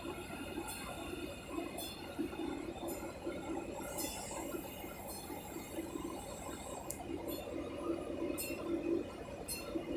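Train running with a steady rumble, and sharp metallic clinks repeating about once a second. A brief high squeal comes about four seconds in.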